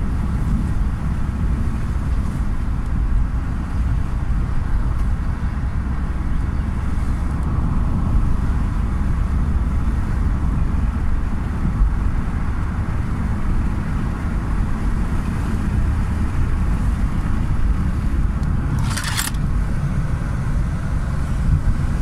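Steady low rumble of a car's engine and tyres on the road, heard from inside the cabin, with a brief hiss near the end.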